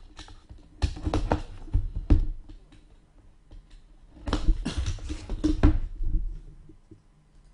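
Trading card hobby box being opened by hand: crinkling and tearing of its packaging in two bursts, about a second in and again around four to six seconds in.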